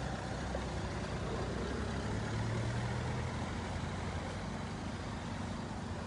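A motor vehicle's engine idling steadily, with street noise.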